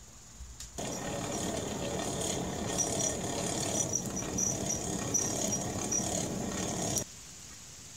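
Split logs burning in an open forge fire, crackling and hissing steadily, with small high pops. The sound starts abruptly about a second in and cuts off about a second before the end.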